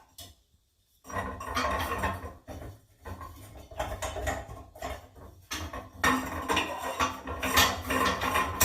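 Irregular clattering and clinking of hard objects being handled, after a brief silent moment at the start.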